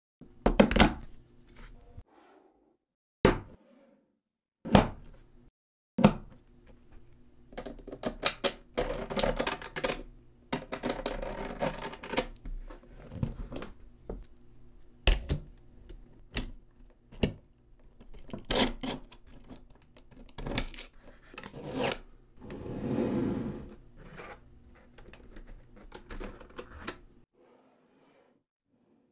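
Small magnetic balls (neodymium ball magnets) clacking and snapping together as blocks of them are joined, pulled apart and pressed into place: single sharp clicks, then stretches of quick rattling clatter.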